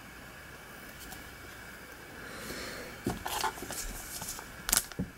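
Thin plastic card sleeve rustling and crinkling as a trading card is handled and slid into it, a few short rustles starting about three seconds in after faint room hiss.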